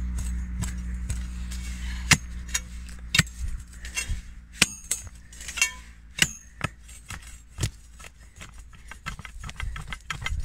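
Metal digging tool striking and scraping into hard soil and roots around a large black bryony root: a series of sharp, irregular knocks and clinks, the loudest about two seconds in. A low rumble sits under the first two seconds.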